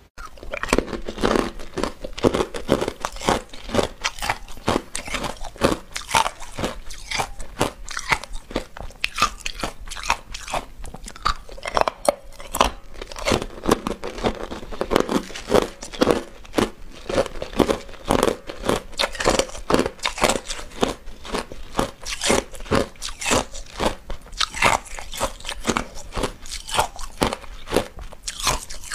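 A person biting and chewing hard clear ice balls, a steady run of sharp cracks and crunches, a few a second, picked up close by a clip-on microphone.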